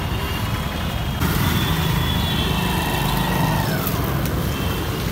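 Busy street traffic, with motorcycle and scooter engines running and passing close by. It grows louder about a second in.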